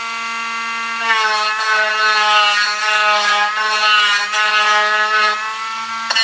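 Dremel rotary tool whining at high speed as its bit grinds the seam line and leftover tabs off a small wooden bat. About a second in, the bit bites into the wood and a rasping hiss joins the whine, whose pitch sags slightly under the load.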